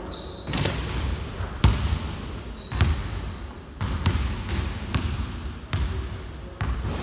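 Basketball bouncing on a hardwood gym floor: about seven sharp bounces, roughly one a second, in a large indoor hall, with a couple of brief high squeaks.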